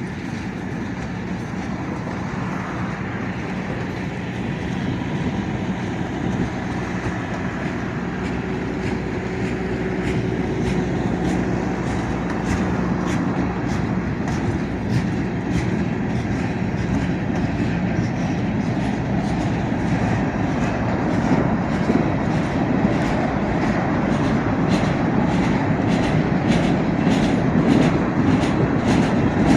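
Freight train cars rolling past, the steady rumble of the wheels on the rails growing slowly louder. In the second half the clickety-clack of the wheels over the rail joints comes quicker and sharper.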